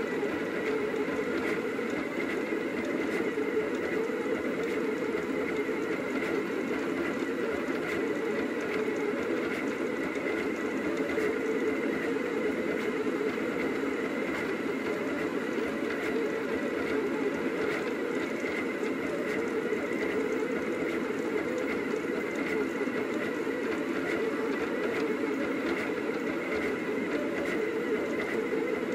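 Rostock delta 3D printer's stepper motors running as they drive the print head through a print, a steady, busy whir of quickly shifting tones.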